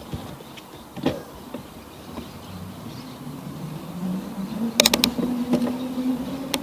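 Kevlar-equipped bicycle ridden at about 25 km/h, giving a steady hum whose pitch rises slowly as it picks up speed. A quick run of sharp clicks comes about five seconds in.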